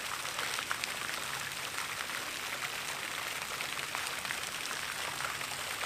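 Steady hiss of splashing water from a small tiled pond, sprinkled with fine patters of drops.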